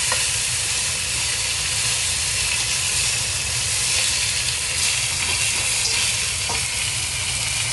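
Chicken pieces searing in hot oil in a wok, a steady sizzle, with a spatula now and then scraping and knocking on the wok as the pieces are turned.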